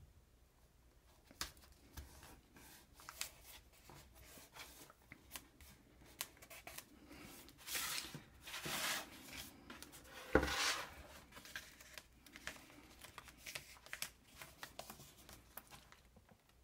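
Hands pressing, pulling and rubbing blue painter's tape onto watercolour paper, with small crackles and ticks. Around eight to eleven seconds in, the board is slid and turned on the wooden table, with a rustling scrape and then a single knock.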